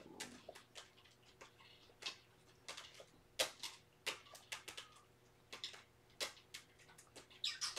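Scattered light clicks and rustles, irregular and several a second, with a brief cat meow right at the start.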